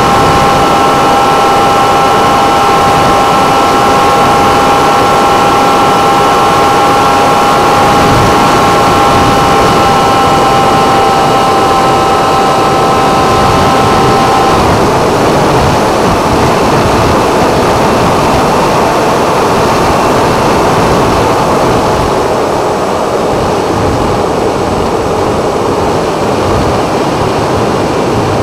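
Electric motor and pusher propeller of a 6S-powered Funjet model jet, heard on board in flight: a steady high whine over heavy wind rush. About halfway through, the whine drops suddenly to a lower, fainter tone as the motor slows.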